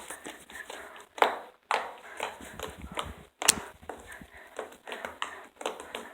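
Slime being squished and poked by hand, giving irregular crackles and sticky pops with a few louder snaps.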